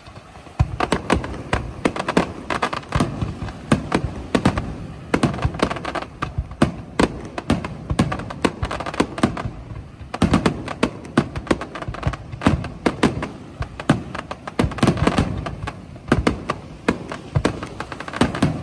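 Fireworks display: a rapid, continuous volley of bangs and crackling from aerial shells and ground-fired fireworks, starting suddenly about half a second in.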